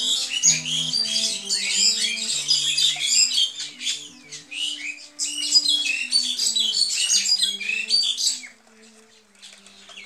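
Many small birds chattering and chirping rapidly all at once, over quieter music of slow held notes. The bird chatter stops about eight and a half seconds in, leaving the music.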